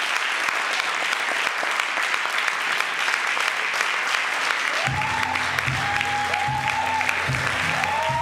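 Theatre audience applauding steadily after a performance. About five seconds in, music with a bass line and a regular beat comes in under the clapping.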